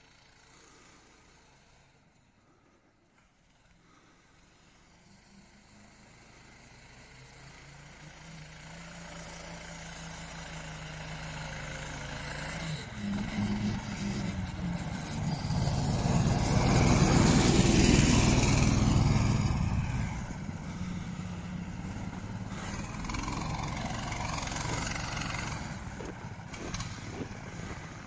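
Motorised towing dog (motosobaka), a small tracked snow tractor, running as it drives toward and past: its engine hum builds from faint to loudest a little past the middle, then fades somewhat.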